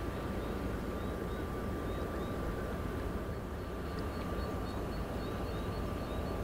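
Inland cargo vessel's diesel engine running steadily, a constant low rumble, with a thin steady high tone above it.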